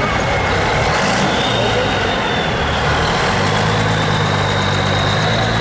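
Engine of a vintage fire engine running as the truck rolls slowly past, with a steady low engine hum that grows deeper and stronger about three seconds in.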